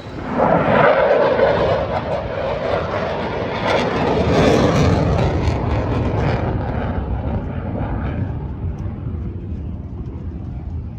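Aircraft flying past, loud within the first second and then fading away over the last few seconds as the high end drops off.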